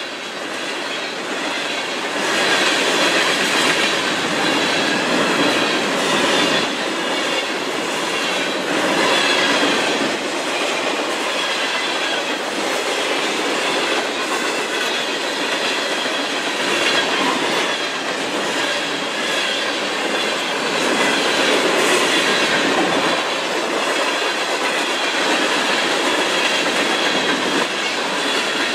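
Freight cars — covered hoppers and tank cars — rolling past close by, their steel wheels running on the rails in a loud steady rush that swells and dips as the cars go by, with a thin wavering high squeal from the wheels.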